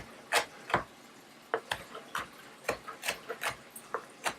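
Kitchen knife chopping fresh mint leaves on a chopping board: a quick, irregular run of sharp taps, about two or three a second.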